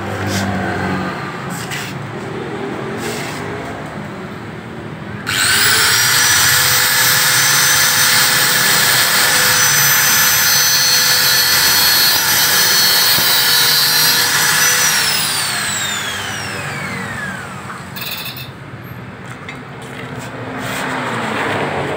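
Electric angle grinder switched on about five seconds in, running at a steady high whine as it grinds down the tip of an old tyre valve, then switched off about ten seconds later, its whine falling as the disc spins down.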